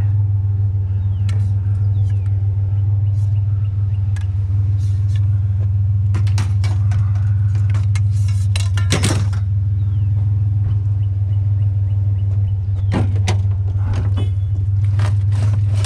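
Pickup truck engine idling with a steady low drone, under a series of clanks and knocks as scrap metal is handled and loaded into the truck bed. The loudest knock comes about nine seconds in.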